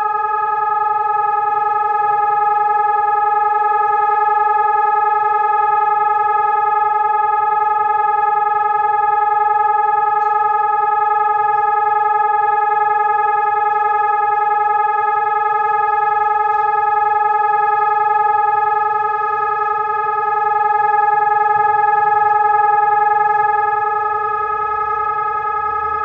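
Colsys VoiceGuard electronic siren sounding a steady, unbroken tone from its horn loudspeakers: the continuous test signal of the Czech monthly siren test.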